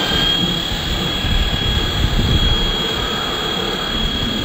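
Pressure washer running, with a steady high whine over the hiss and splatter of the water jet hitting a riding mower's deck.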